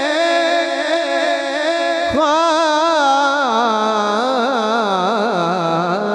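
A man singing a Punjabi devotional song into a microphone, drawing out one long line without words: a held note, then a wavering, ornamented melody that steps down in pitch toward the end.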